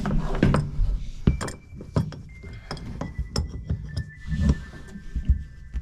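Adjustable wrench clinking and knocking in irregular strikes against a stuck SharkBite push-to-connect fitting on a water pipe as it is worked to release it. Background music plays throughout.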